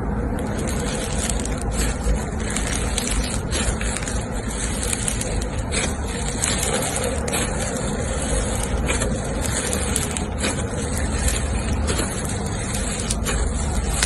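Slime being worked by hand: steady squishing and crackling, with many small pops and clicks running through it.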